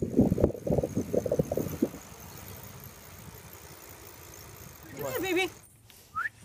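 Wind rushing over the microphone while cycling: a steady noise. A voice is heard over it for the first two seconds, and a short vocal sound comes about five seconds in.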